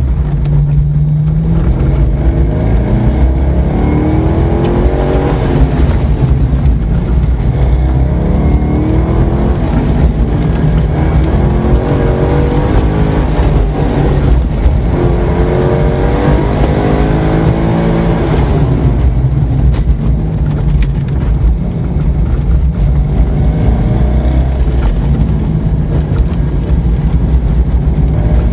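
Corvette C5 Z06's 5.7-litre LS6 V8, heard from inside the cabin, held in second gear while accelerating hard and lifting off again and again. The engine note rises and falls several times over a heavy low rumble.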